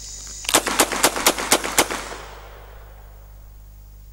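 Six rapid shots from a Rossi Circuit Judge .44 Magnum revolver-action rifle, fired about four a second, each report ringing briefly. The shots start about half a second in and are over in under two seconds.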